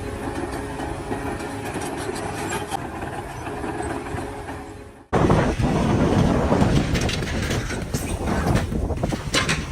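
Machinery running with a steady hum. About five seconds in it cuts off abruptly and gives way to louder, rougher clattering noise with frequent knocks.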